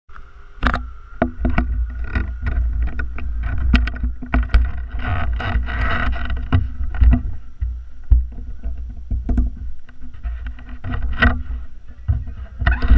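Rubbing, bumping and knocking of a Givi X.01 motorcycle helmet, with a camera mounted on top, as it is pulled down onto the head and adjusted by hand: a run of sharp knocks over a low, rumbling rustle.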